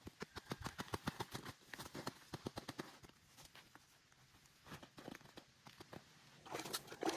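A rapid series of small snaps and crackles, thinning out after about three seconds, then a louder scratchy rustle near the end.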